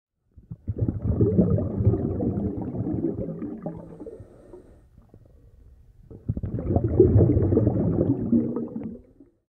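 Underwater bubbling in two long bursts, separated by a short quiet gap, like a scuba diver breathing out through a regulator twice.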